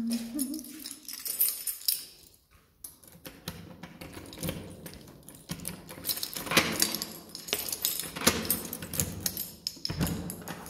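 Keys jangling and a key being turned in the cylinder lock of a steel entrance door, with a run of irregular metallic clicks and rattles from the lock and handle.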